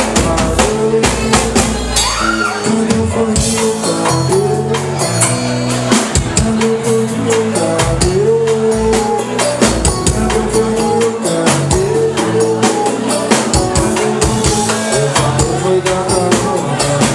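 Live band playing an upbeat song with a steady beat of drums and percussion, a bass line, and a male singer on a handheld microphone, amplified through the club's sound system.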